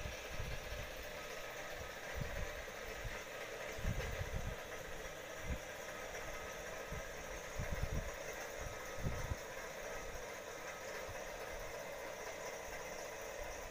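Steady whirring background noise from a running machine, with a few soft low thumps scattered through it.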